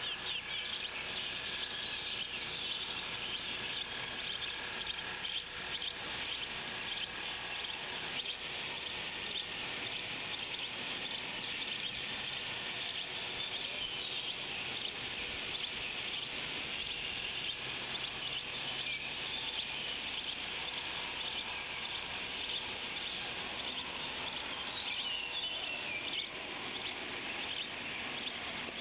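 Birds chirping continuously, a chorus of many short, high calls over a steady outdoor hiss.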